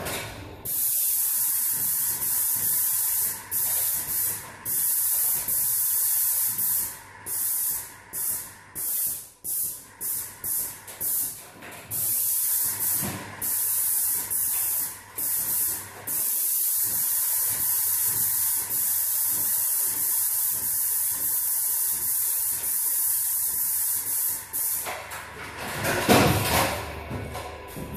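Airless paint sprayer gun hissing as it sprays paint onto walls and ceiling. The trigger is pulled in short on-off bursts at first, then held for long steady passes. A louder, fuller noise comes in near the end.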